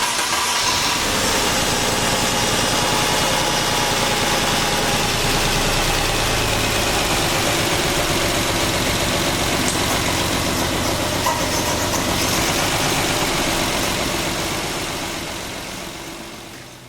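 Mercedes-Benz M272 V6 engine running steadily at idle after a timing-chain repair, fading out over the last few seconds.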